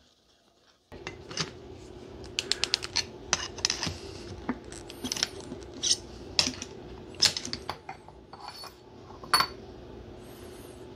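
Metallic clicks and clinks of a steel centrifugal-chiller shaft-seal housing being unbolted and pulled apart by hand, with loose bolts and hand tools clinking on the bench. They start about a second in and come irregularly, a few a second, over a faint steady hum.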